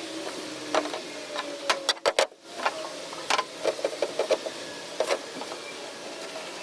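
Scattered sharp clicks and knocks of hands handling tools and containers during the acetone wipe-down, irregular and clustered a few seconds in, over a steady background hum. The sound cuts out briefly about two seconds in.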